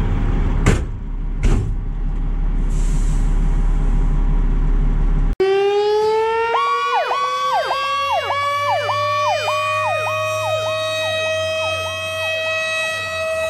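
A fire truck's engine idles with two sharp knocks in the first seconds. After a sudden cut, fire-apparatus sirens sound: a mechanical siren winds up in a slowly rising whine while an electronic siren sweeps up and down about twice a second over it.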